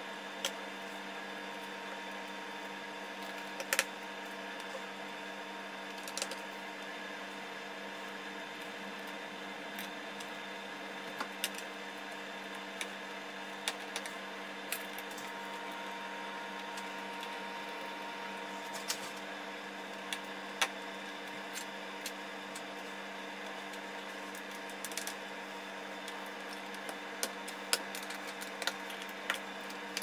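Scattered small clicks and taps as the aluminium bottom cover of a MacBook Pro is refitted and screwed down by hand, over a steady low electrical hum.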